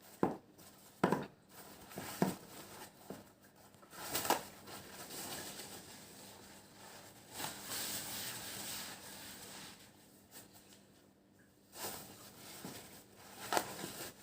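Rustling and crinkling, with a handful of sharp clicks and knocks spread through, the longest stretches of rustle about four and seven seconds in.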